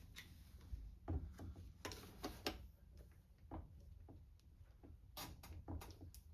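Faint, irregular clicks and light ticks of a screwdriver working a carburetor screw, which keeps turning without getting tighter.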